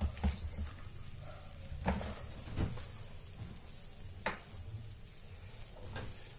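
Handling noise: four short clicks and knocks as a small portable monitor and cable plugs are moved about on a workbench, over a low steady hum.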